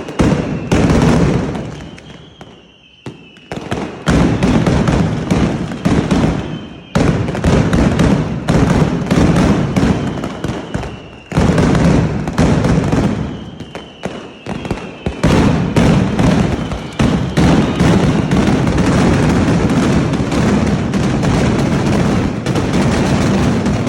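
Festival fireworks: dense volleys of rapid firecracker bangs with an occasional faint whistle. The bangs drop away briefly a couple of seconds in, then build into an almost unbroken rattle over the second half.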